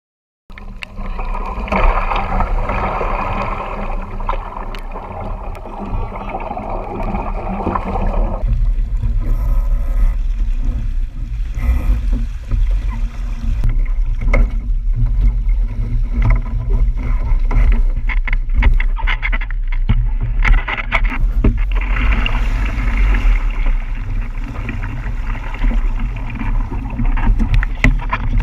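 Wind buffeting the microphone of a camera mounted on a Musto Skiff sailing dinghy, over water rushing and splashing along the hull. Scattered knocks and splashes come through the middle, with heavier splashing near the end as the boat goes over into the water.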